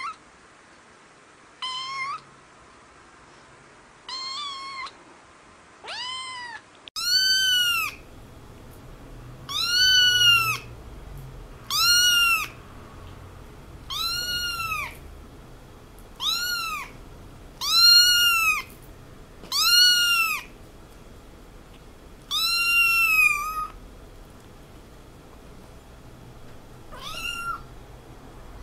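Kittens meowing in high-pitched mews, one call roughly every two seconds, each rising and falling. It is a dubbed-in recording rather than the scene's own sound: fainter at first, louder from about seven seconds in.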